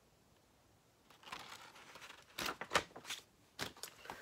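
Paper rustling as the pages of a hardcover picture book are turned, with several sharp taps and knocks from the book being handled, starting about a second in.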